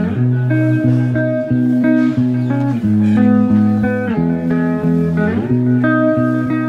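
Instrumental background music led by a plucked guitar, playing a slow run of held notes.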